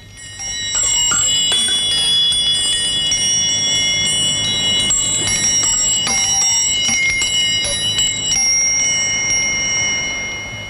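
Bright bell chimes in background music: many high bell tones struck one after another and left ringing so they overlap, coming in under a second in and fading near the end.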